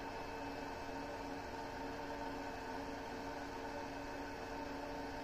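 Steady low hum with a faint even hiss from the running battery tester (electronic load) while it charges an 18650 cell.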